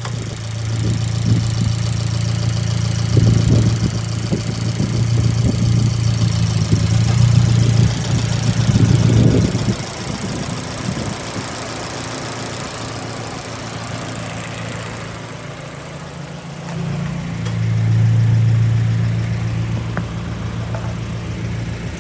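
2015 Fiat 500 Abarth's turbocharged 1.4-litre four-cylinder engine idling with a steady hum. It drops in level for several seconds midway, then comes back up.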